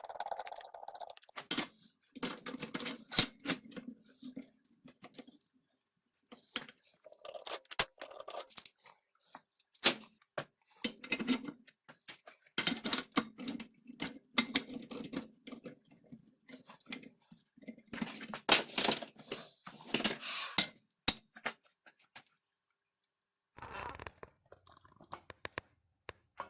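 Hard parts being handled: irregular clinks, clicks and short scrapes in clusters, with brief pauses and a longer lull near the end.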